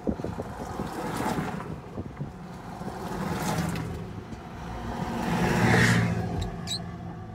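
Cars driving past on a dirt road, their engines and tyre noise swelling and fading in turn. The loudest pass comes about six seconds in.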